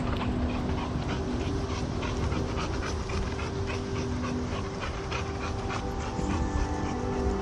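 A dog panting quickly and evenly, over a low rumble on the microphone, with a faint steady hum underneath.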